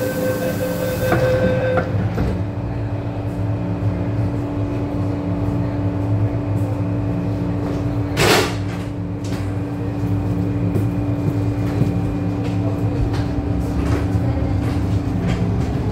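MTR M-Train car standing in the station with its doors shut: a steady hum from the car's equipment throughout, a higher steady tone that stops about two seconds in, and one short, sharp hiss of air about eight seconds in.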